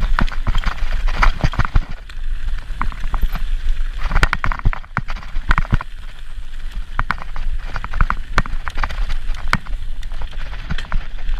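Orange mountain bike riding fast over a rough, rooty forest singletrack: tyres rolling on stones and dirt, with frequent sharp knocks and rattles from the bike over the bumps, over a steady low rumble of wind and vibration on the camera mount.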